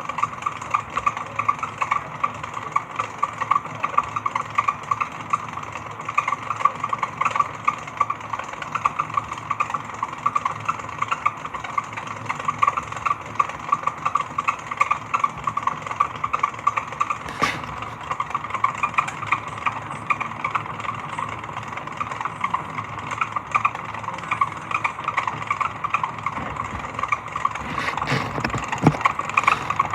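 Disassembled clothes dryer running, its drive making a fast, even, repeating clicking rattle: the abnormal noise it makes when turning, which appears to come from a slack drive belt and a loose, wobbling central fan.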